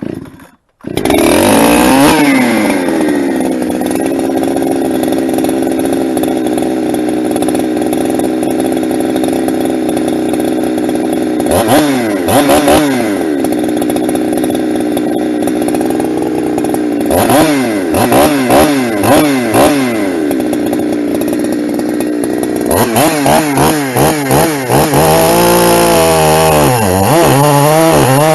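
Ported Husqvarna 372 two-stroke chainsaw running, brought up to high revs in short blips several times, then rising and dipping in pitch over the last few seconds as it loads and unloads in a cut.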